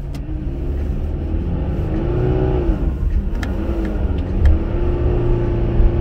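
Subaru Crosstrek's flat-four engine and tyres heard from inside the cabin while driving on snow-packed road, with a steady low rumble. The engine note rises and eases off twice as the car accelerates.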